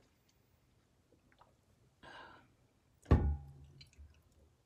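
A soft breathy exhale about two seconds in, then a loud thud with a short low ring a little after three seconds as a large water bottle is set down hard after a drink.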